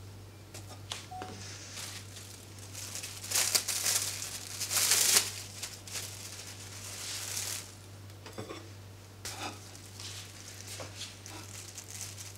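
Clear plastic film crinkling and rustling as it is handled, loudest in bursts a few seconds in, followed by a few light knocks.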